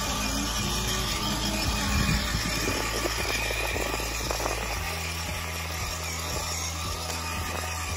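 Battery-powered children's ride-on toy motorcycle driving along an asphalt path: a steady low hum from its drive with its plastic wheels rolling on the pavement, the hum shifting twice partway through, with faint regular ticks about twice a second later on.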